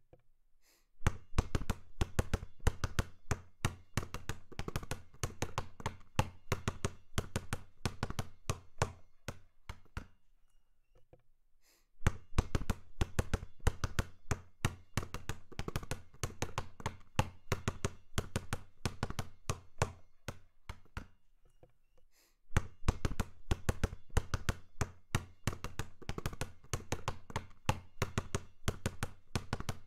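Basketball being dribbled in rhythm, fast runs of bounces several a second. The bouncing stops briefly about ten seconds in and again about twenty-two seconds in, then picks up again.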